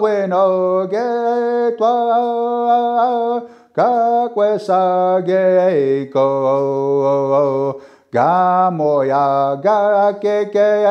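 A man singing a First Nations honour song solo and unaccompanied, in vocables. He sings three long phrases, each starting high and stepping down in pitch.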